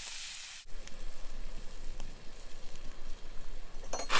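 Broccoli and cauliflower sizzling in a frying pan over a campfire. About half a second in, the sound cuts to a louder, rougher noise of the open fire with a few sharp clicks.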